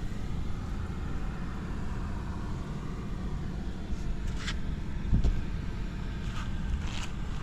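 Honda Ape 50's small single-cylinder four-stroke engine running steadily through a Racing Service ZERO aftermarket muffler, with a low exhaust rumble. It is briefly louder about five seconds in.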